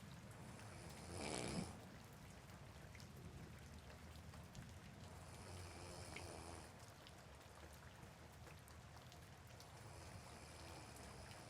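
A person snoring softly: three snores about five seconds apart, the first the loudest. Soft rain hisses steadily beneath them.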